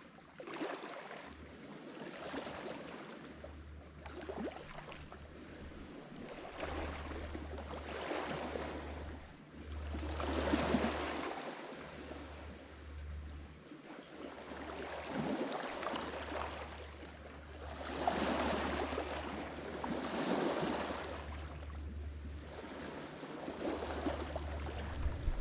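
Lake Michigan waves washing ashore, breaking in swells that rise and fall every few seconds. The loudest comes about ten seconds in, with two more breaks after the middle.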